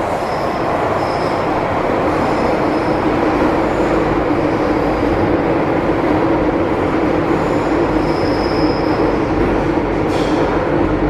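MTR Island Line M-Train running through a tunnel, heard from inside the carriage: a steady roar of wheels on rail with a steady hum under it, and a few short faint high wheel squeals now and then.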